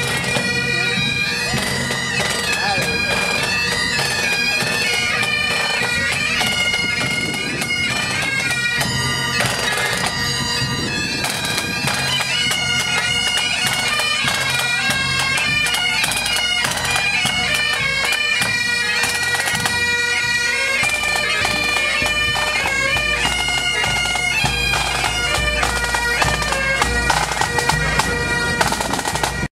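Pipe band bagpipes playing a marching tune, the melody stepping from note to note over the pipes' steady drone.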